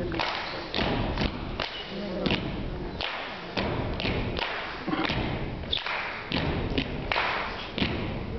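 Group body percussion: many feet stomping together on a wooden stage floor in an uneven, syncopated rhythm of several hits a second, with sharper, higher-sounding hits mixed in among the heavy thuds.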